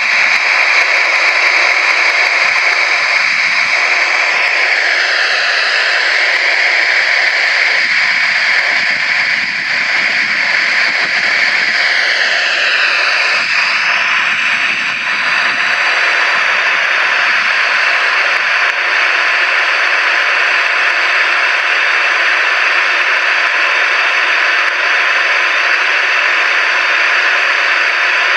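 Boeing 737-800's CFM56 jet engines running at low power with a steady rush and whine. The whine dips and rises in pitch a few times in the first half.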